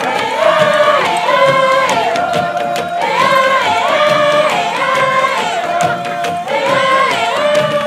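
A group of voices singing a traditional Bougainville song together, in long held notes that step between a few pitches in repeated phrases.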